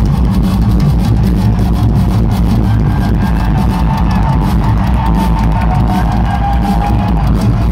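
Live rock band playing loud through an arena sound system, driven by a full drum kit, with a few held notes over the drumming.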